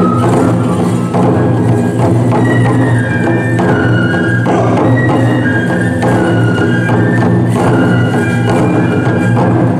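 Tiger-dance festival music: taiko drums beat steadily while bamboo transverse flutes play a high, lilting melody of short held notes over them.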